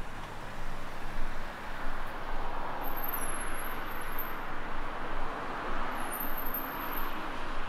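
Steady outdoor urban ambience: a continuous wash of background noise that swells and dips, with no single sound standing out.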